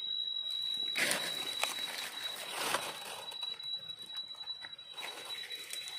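Dry fallen leaves rustling and crackling as a hand brushes through the leaf litter, loudest from about one to three seconds in. A steady high-pitched tone runs underneath.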